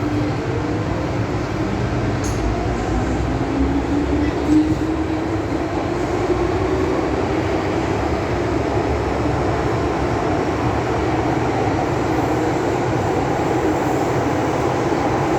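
Inside a Metro-Cammell M-Train electric multiple unit running through an underground metro tunnel: a steady rumble of wheels on the rails, with a motor whine that rises in pitch a few seconds in as the train gathers speed. There is one short knock about four and a half seconds in.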